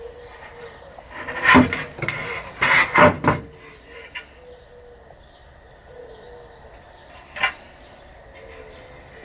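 A wooden board lifted off its wooden frame, knocking and scraping wood on wood: a cluster of loud knocks about one and a half to three seconds in, and a single knock about seven and a half seconds in.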